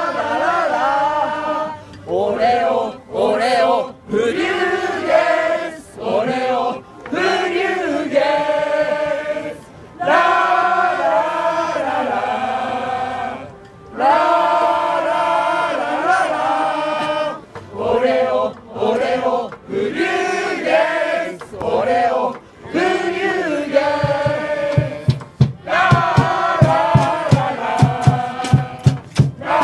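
Football supporters singing a chant together in unison, in long sung phrases. A steady drum beat joins near the end.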